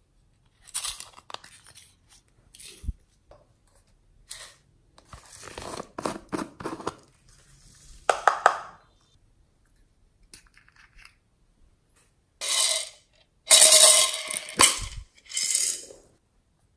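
Small plastic toys and topping containers handled over a tray of slime, with sprinkles poured from a cup onto the slime: scattered clicks and rustling pours, loudest in a run of bursts near the end.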